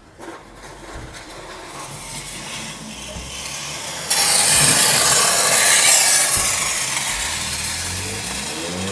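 A 4x4 vehicle moving off along the street with a rough, rasping noise that builds steadily, jumps sharply louder about four seconds in, then slowly fades. Near the end an engine revs up with a rising pitch.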